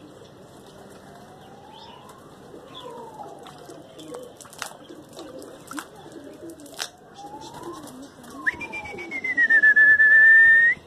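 Pigeons cooing, with fainter tones gliding down and up in pitch. From about two-thirds of the way in, a loud whistle dips slightly in pitch and then holds steady before cutting off sharply: the kind of whistle pigeon flyers use to work their flock.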